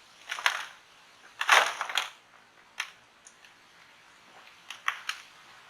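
Garden soil being dumped, in several short rustling, scraping bursts; the longest comes about a second and a half in.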